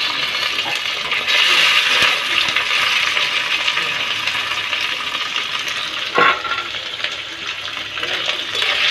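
Boiled mushroom pieces frying in hot mustard oil in a kadhai, a steady hiss of sizzling. There is one brief sharp sound about six seconds in, and a spatula comes in to stir near the end.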